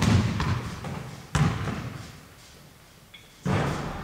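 Heavy thuds: one at the start, another about a second and a half in, and a third near the end, each dying away over about a second.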